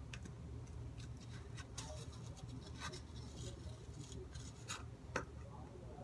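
Homemade slime being squished and kneaded by hand: faint, irregular sticky squelches and clicks, the sharpest a little after five seconds in, over a steady low hum.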